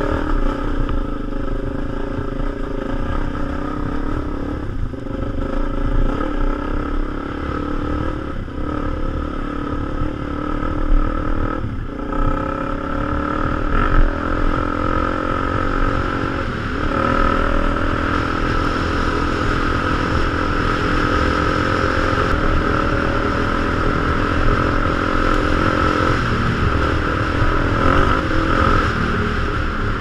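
Enduro motorcycle engine running as the bike is ridden off-road, its pitch and level shifting several times with the throttle, with a few knocks and clatters over rough ground.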